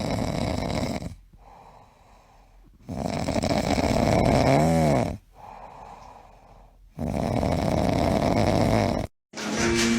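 Dog snoring: three long snores about three seconds apart, with quieter breaths between, the middle one carrying a brief whine that rises and falls. Near the end the snoring cuts off and a different sound with steady tones begins.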